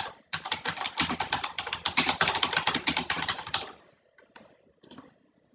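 Fast typing on a computer keyboard: a quick run of keystrokes that stops just under four seconds in, followed by a few separate key presses.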